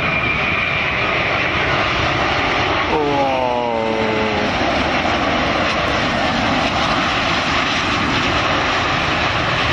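Airbus A330-900neo airliner's jet engines on final approach to land, passing low: a loud, steady jet rumble, with a thin high whine that fades out after about a second and a half.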